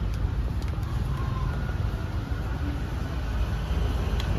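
Road traffic going past: a steady rumble of motor vehicles with a few faint clicks.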